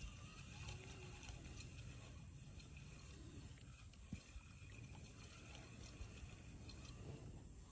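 Faint water lapping and trickling against a kayak hull, over a low steady rumble, with one small knock about four seconds in.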